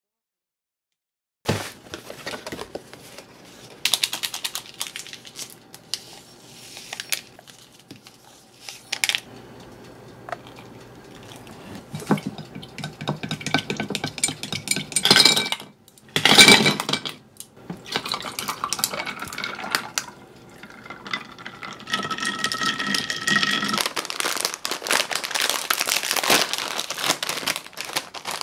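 Kitchen handling sounds while iced coffee is made in a ceramic mug: clinks and knocks of ice and utensils against the mug and liquid pouring in, then a foil snack bag crinkling as chips are tipped onto a plate near the end.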